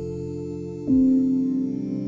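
Ambient new-age music of sustained, layered chords. About a second in, a brief low downward sweep leads into a new, louder chord.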